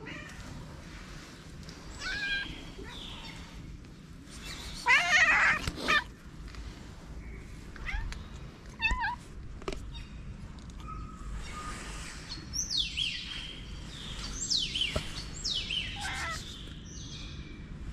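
Stray cats meowing several times, the loudest and longest meow about five seconds in. A run of high, quickly falling chirps follows in the second half.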